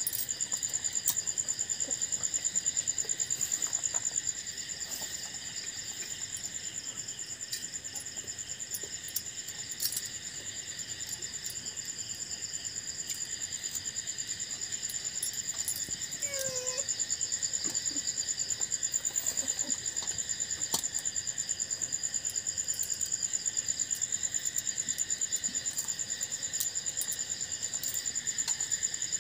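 Crickets chirping in a steady, fast-pulsing night chorus at several overlapping pitches, with faint clicks now and then.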